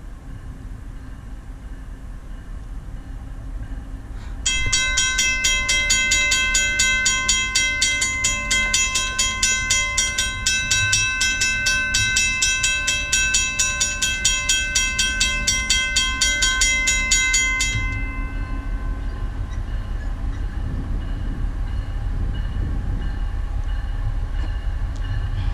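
Western-Cullen-Hayes mechanical railroad crossing bell starting up suddenly about four seconds in, its hammer striking the gong in a rapid, steady ring as the crossing activates for an approaching train. After about thirteen seconds the strikes stop and the gong rings out briefly, leaving a low rumble.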